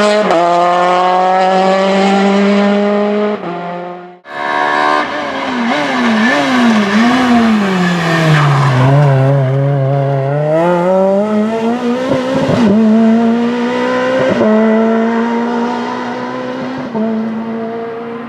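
Rally car engines at full throttle: one holds a steady high note, then after an abrupt cut about four seconds in another revs up and down through quick lifts and gear changes, drops low as it slows, and climbs again as it accelerates away.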